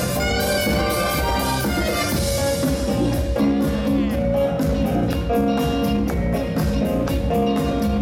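Live band with a horn section, saxophone, trombone and trumpet, over drums, guitar and keyboards, playing disco dance music with a steady beat.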